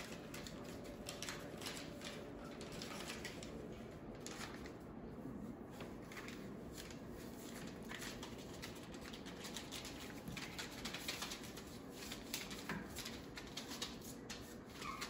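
Four-week-old Labradoodle puppies' paws scratching and rustling over newspaper and pen bedding, a continuous run of soft, irregular crinkles and scrapes.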